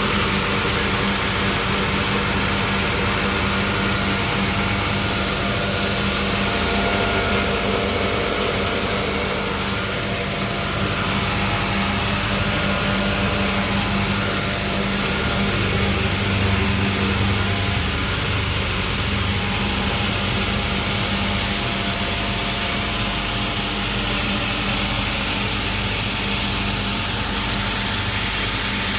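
Metal dryer for wet-separated copper and aluminium granules running steadily: an even machine noise with a constant low hum and a hiss over it.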